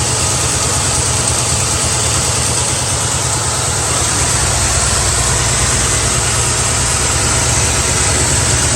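Carbureted Ford Mustang engine idling slightly unevenly, a little jumpy, with a tremble from a misfire. The cause is a bad spark plug wire on the driver's side arcing to the header and grounding out that cylinder.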